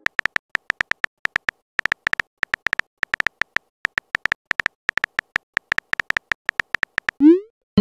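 Texting app's keyboard sound effect: a rapid, uneven run of short beeping key taps as a message is typed, then a brief rising whoosh near the end as it is sent.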